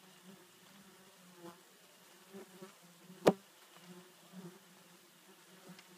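Faint buzzing of a flying insect, wavering louder and softer, with one sharp click a little past halfway.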